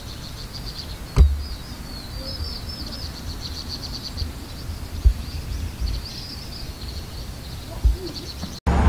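Songbirds chirping and trilling in rapid high repeated notes over a low outdoor rumble, with a few sharp thumps, one a little after the first second and others around five and eight seconds in.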